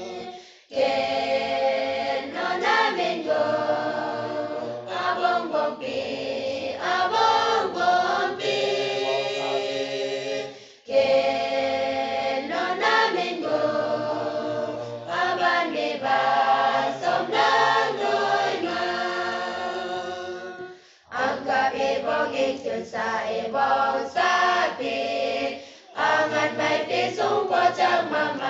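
A mixed choir of young women and men singing a Naga hymn in harmony, unaccompanied. The singing comes in long phrases with brief breath pauses between them, about half a second in, near the middle and twice in the last third.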